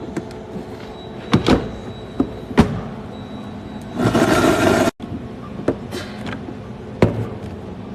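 A few sharp knocks and clacks of ice in a plastic blender pitcher, then a commercial drink blender runs for about a second, about four seconds in, and cuts off suddenly.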